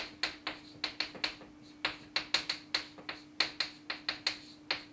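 Chalk tapping against a chalkboard while words are written by hand: a quick, irregular run of sharp clicks, about four a second.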